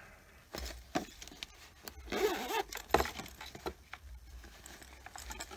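Handling of a leather-look toiletry bag: rustling, with a few sharp clicks and soft knocks as it is turned over and set down in its box, the loudest click about three seconds in.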